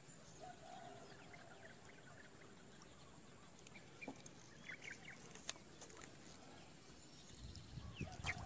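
Near silence: faint outdoor ambience with a few soft bird chirps about halfway through, scattered small clicks, and a few low bumps near the end.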